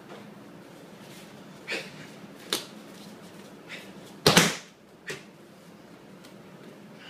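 A person thrown in a jujutsu throw lands in a breakfall on a padded mat: one heavy thud about four seconds in, the loudest sound, after a few quieter short sharp sounds.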